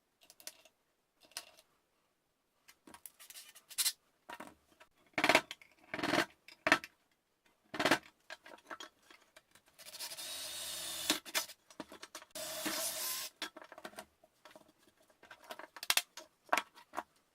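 Clicks and knocks of parts being handled, then two runs of about a second each of an electric drill boring through sheet metal, a little past halfway through.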